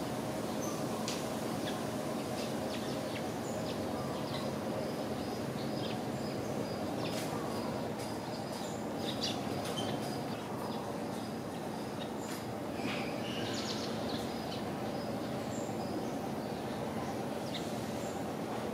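Steady outdoor background hum, with scattered short bird chirps throughout.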